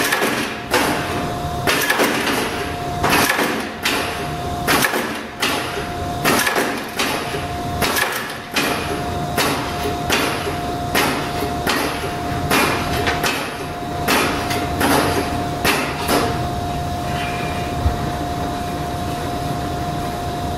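Small semi-automatic punch press cycling on its own, punching bar stock with a sharp impact a little faster than once a second over a steady whine. The strokes stop about sixteen seconds in, leaving the machine running.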